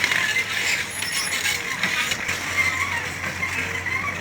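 Mini excavator at work: its engine running under a busy pattern of metallic clicking and squeaking from the machine.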